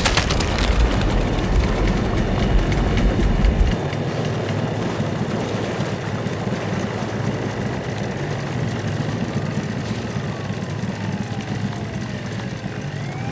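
Film sound effects: a steady low rumble under a wash of noise, the deepest part of the rumble cutting off about four seconds in. In the last few seconds sirens begin to wail, rising and falling in pitch.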